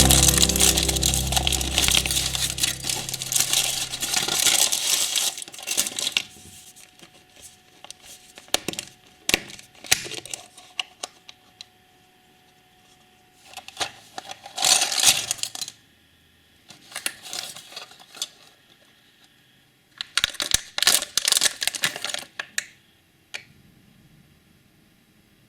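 Foil wrapper crinkling and tearing, with small clicks and taps of hard plastic, in several short bursts; a loud rushing noise fades away over the first few seconds.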